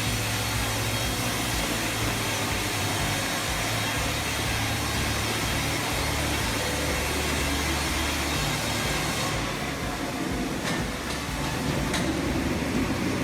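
Industrial sawmill running and cutting through a log: a steady machine hum under a broad rushing noise, the higher part dropping away about nine and a half seconds in.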